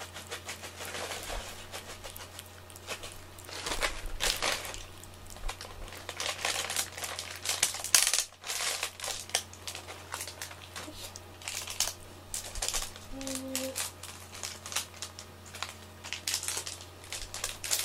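A cat licking a soft lickable treat paste off a small plate: wet tongue clicks and smacks in quick, irregular runs, with one louder click about eight seconds in.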